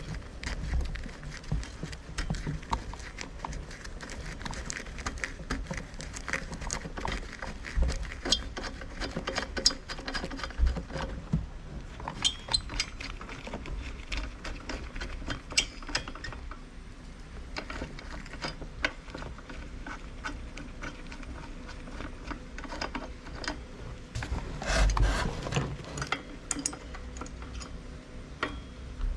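Irregular clicks, taps and knocks of hand tools and small metal parts being handled while working on a TL43 brush cutter's clutch, with a few louder knocks scattered through.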